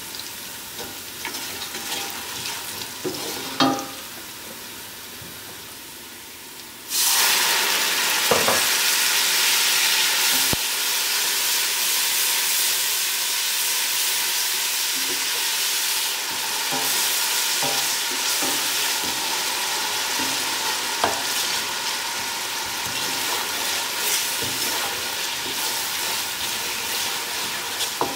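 Sliced onions and whole spices sizzling in hot oil in a stainless steel pot, stirred with a wooden spoon that knocks now and then. About seven seconds in, a splash of water hits the hot oil and the sizzle turns suddenly loud, then carries on as a steady hiss with steam.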